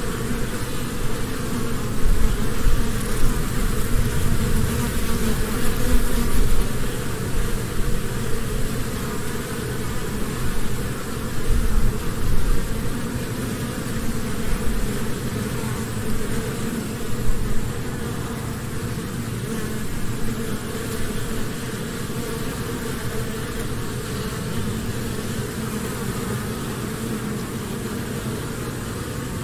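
Honeybee hive humming: a steady dense buzz of many bees, with low rumbling bumps in the first half that ease off later.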